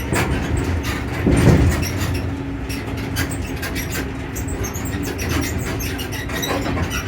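Zoo tour tram (Zoomobile) driving along, its motor giving a steady low hum under many small rattles and clicks from the carriages, with one louder bump about a second and a half in.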